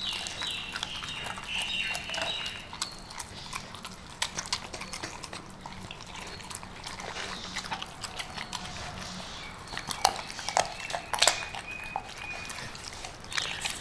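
Rottweilers chewing raw chicken feet: irregular crisp crunches and cracks of bone, the loudest about ten and eleven seconds in. A few brief high-pitched tones sound near the start.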